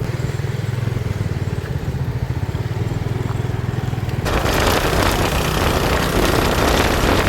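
Motorbike engine running steadily while riding. A rushing noise swells and grows louder about four seconds in.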